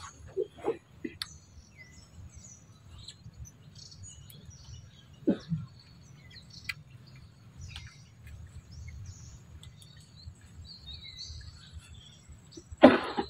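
Birds chirping in short scattered calls over steady low background noise. A short call falls in pitch about five seconds in, and a loud, sudden sound comes near the end.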